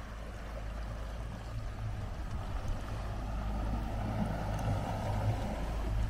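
Motorboat engine running steadily under way, growing gradually louder, with a rush of water.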